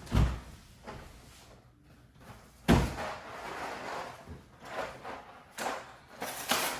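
Kitchen clatter of cupboards and cookware being handled: two solid thumps, one just after the start and one near three seconds in, with lighter knocks and rattles between and after.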